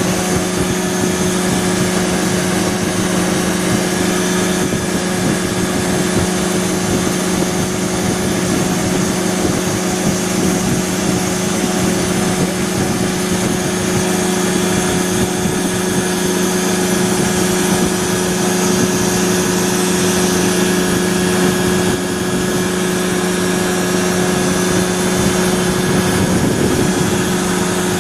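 ASAP Beaver SS ultralight aircraft's engine and propeller running steadily at a constant speed, heard close up on board.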